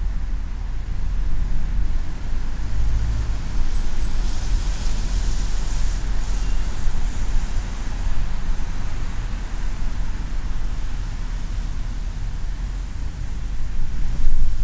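Steady low rumble of a car driving on a city expressway: tyre and engine noise, with a stretch of stronger hiss from about four to seven seconds in.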